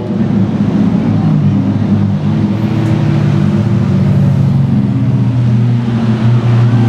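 Ferrari 458 V8 and Lamborghini Aventador V12 engines running at low revs as the cars roll slowly past, a steady low engine note.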